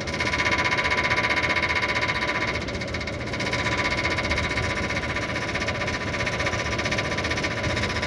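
Voltas window air conditioner running with a fast, even rattle over its steady hum: the fan blade is striking the outer body, which has rusted and swollen inward.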